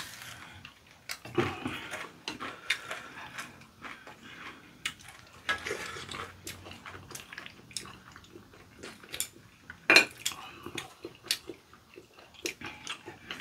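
Chopsticks clicking and scraping against a frying pan and plates as food is picked up, with chewing between the clicks; the sharpest click comes about ten seconds in.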